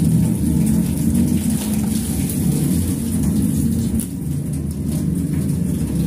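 Water poured from a plastic jug splashing onto ice and frost inside a chest freezer being defrosted, over a steady low rumble.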